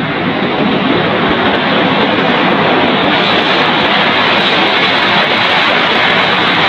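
B-52 Stratofortress's eight jet engines at high power as the bomber rolls down the runway on its takeoff run. A loud, even rushing roar that builds over the first couple of seconds, then holds steady.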